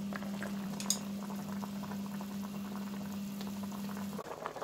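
Water boiling hard in a stainless steel pot with whole black chickens in it, being blanched to draw out impurities: steady bubbling with many small pops. A low steady hum runs under it and cuts off about four seconds in, and there is one sharp click about a second in.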